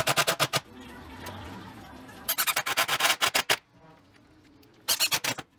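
Cordless impact driver driving wood screws into plywood, in three bursts of rapid hammering, with short pauses between them.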